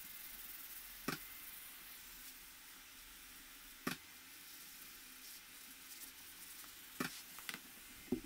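Faint steady hiss broken by sharp wooden knocks about a second in, near four seconds, and several near the end, as a particle-board countertop blank is handled and shifted on a counter.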